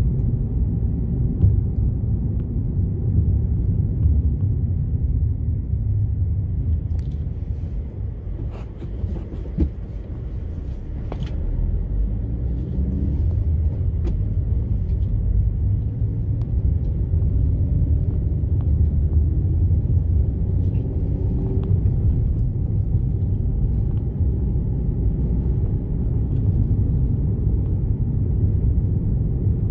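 Car driving on a dirt road, heard from inside the cabin: a steady low rumble of tyres and engine, with a few sharp clicks about a third of the way through.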